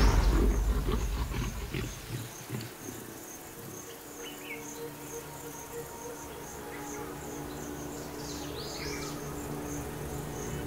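Soundtrack music fading out over the first two seconds, then an insect chirping steadily about twice a second over a soft low drone. A few short calls are heard around the middle and near the end.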